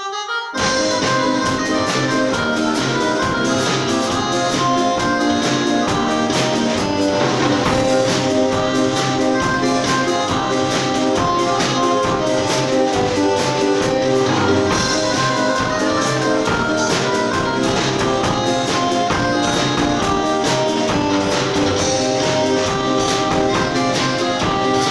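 Live band playing an instrumental intro with no vocals: a brass-like melody over keyboard chords, and a drum kit keeping a steady beat. The music starts abruptly at full level.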